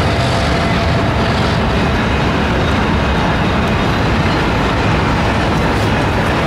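CSX freight train passing on elevated track: a diesel locomotive rolling by, then double-stack container well cars. A steady, loud rumble of wheels on rails, with a few light clicks in the second half.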